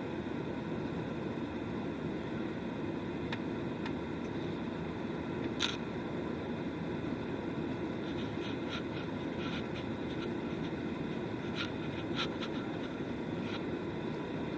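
Steady drone of an airliner cabin during the climb after takeoff. Faint clicks and rustles from handling sound over it: a sharper one about six seconds in, and several more in the second half.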